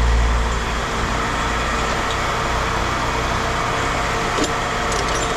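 An engine running steadily with an even mechanical hum and low rumble, the rumble easing about half a second in, with a few light clicks near the end.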